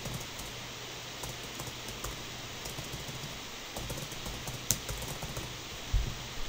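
Typing on a computer keyboard: scattered light keystrokes over a steady computer-fan hiss, with one sharper click a little after the middle and a heavier key press near the end.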